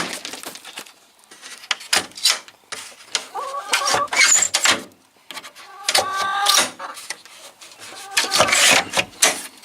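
Knocking, rattling and scraping as the chicken coop's window is reached up to and worked by hand, with a few short voice-like sounds in between.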